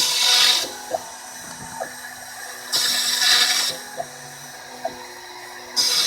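Small desktop CNC router milling MDF, with stepper motors whining in short moves. Three loud hissing rushes, each about a second long and about three seconds apart, rise over the machine noise as the cutter works the MDF.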